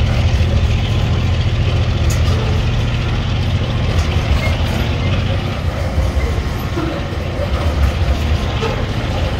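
Container flat wagons of a freight train rolling past close by: a steady heavy rumble of steel wheels on the rails, with a few faint sharp clicks.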